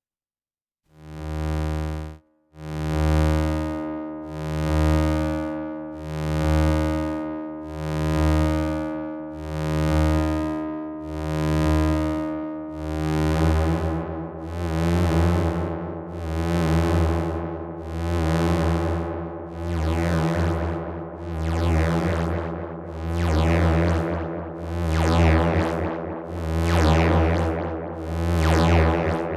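AE Modular synthesizer drone from a Nyle filter self-oscillating at full resonance, run through a phaser and delay. A low pitched tone swells and fades in a steady pulse just under every two seconds, shaped by a triangle LFO on the VCA. About halfway through, a sweeping shimmer enters the upper tones.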